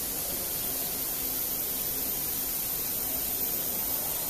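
Steady high-pitched hiss with a faint low hum under it, unchanging throughout, with no distinct knock or motor change standing out.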